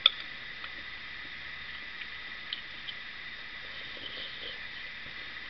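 Quiet sounds of someone eating stew: a sharp click right at the start, a few faint clicks about two and a half and three seconds in, and soft mouth noises, over a steady high hiss.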